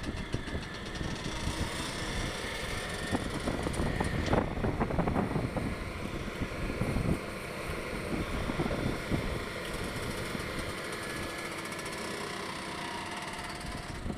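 Diesel engines of an excavator and dump truck running steadily as the excavator loads soil, with irregular clattering knocks about four to five seconds in and again around seven seconds.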